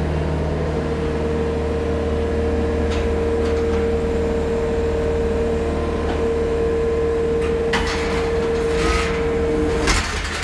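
Loader's diesel engine running under load with a steady hydraulic whine as the loader arm lifts; a hanging steel gate rattles and clanks from about eight seconds in, and the whine stops just before the end.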